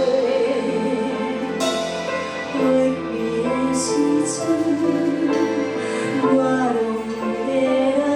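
Gentle background music with long held melody notes.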